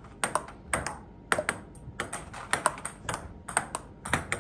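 Table tennis backhand rally: a plastic ball clicking off the bats and bouncing on the table in a quick steady rhythm, the clicks coming in close pairs about every half second or so.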